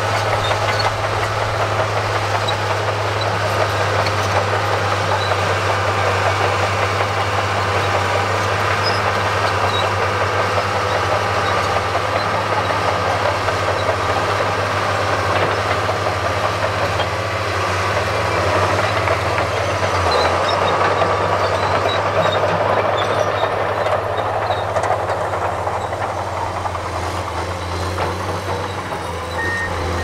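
Komatsu crawler bulldozer's diesel engine running steadily under load as it pushes soil, its note stepping down slightly about two-thirds of the way in. At the very end a backup alarm starts beeping.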